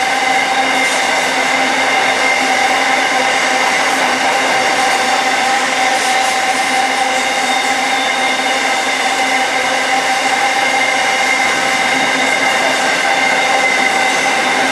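Grain hopper wagons of a freight train rolling past at close range: a loud, steady rush of steel wheels on rail with a constant whine held through it.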